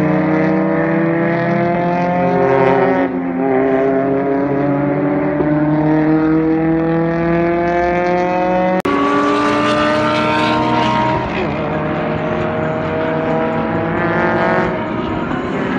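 Race car engines accelerating hard, several at once. Their pitch climbs steadily, drops briefly at each upshift and climbs again. The sound breaks off suddenly about halfway through, and another burst of acceleration follows.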